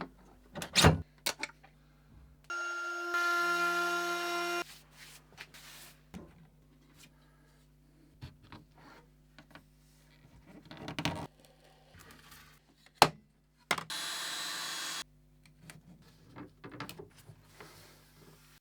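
Workshop sounds of woodworking tools in short cut-together clips: scattered clicks and knocks, a machine running with a steady whine for about two seconds, a single sharp knock past the middle, and about a second of hissing noise near the end.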